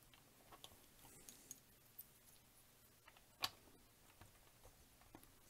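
Faint, scattered clicks of plastic building bricks being handled and fitted together, with one sharper click about three and a half seconds in.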